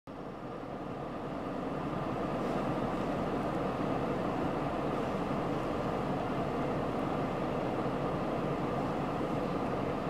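Steady rushing of strong wind blowing past a parked car, heard from inside it, growing a little louder over the first two seconds and then holding.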